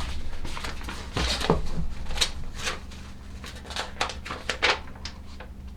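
Packaging and papers being handled: a series of short rustles and light knocks, several a second at times, over a low steady hum.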